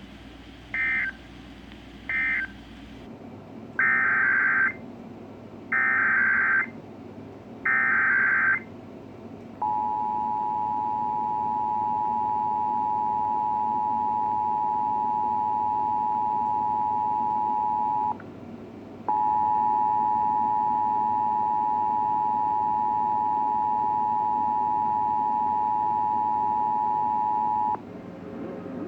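Emergency Alert System signalling. It opens with the last two short end-of-message data bursts, then three longer SAME header data bursts about two seconds apart. Then comes the steady two-tone attention signal, held about eight seconds, broken off for under a second, and resumed for about nine seconds more.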